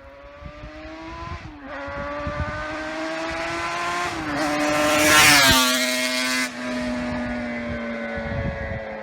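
A motor vehicle driving past: its engine note grows louder, is loudest about five seconds in with a rush of tyre and wind noise, and drops in pitch as it goes by.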